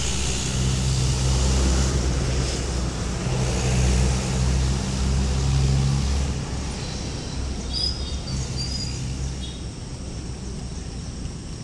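A motor vehicle's engine running with a low, steady hum that eases after about six seconds. A few brief high chirps come near eight seconds.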